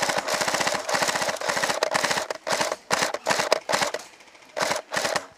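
A rapid-fire game gun shooting in bursts, about ten shots a second. One long string comes first, then several shorter bursts, then two quick bursts near the end.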